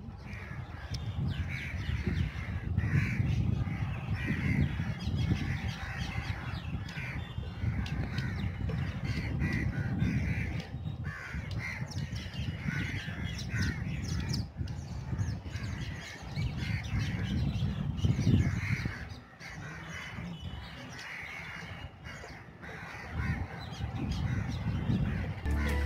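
A huge flock of rosy starlings calling together: a dense, continuous chatter of many overlapping harsh calls, over a low rumble that swells and fades.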